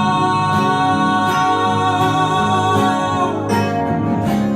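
Japanese pop song: a singer holds one long note over guitar accompaniment, the note ending about three seconds in as the accompaniment carries on.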